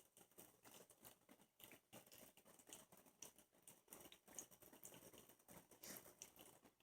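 Faint, irregular pattering of water droplets spattering from a Fitnate ultrasonic mist maker running in water.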